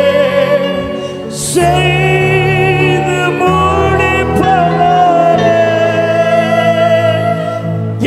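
Live worship band: singers holding long, sustained notes over steady keyboard chords that change every couple of seconds.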